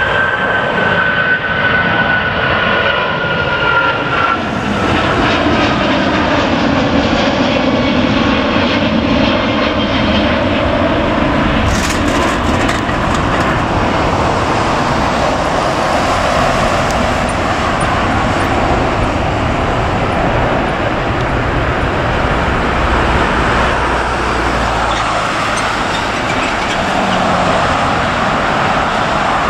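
Jet engines of a Boeing 777-200ER at climb power just after takeoff, a loud steady rumble as the airliner climbs away. A high whine drops slowly in pitch over the first few seconds.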